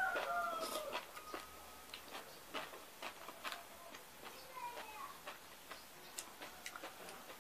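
Close-up mouth sounds of eating by hand: chewing, lip-smacking and finger-licking clicks. In the background a rooster's crow tails off about a second in.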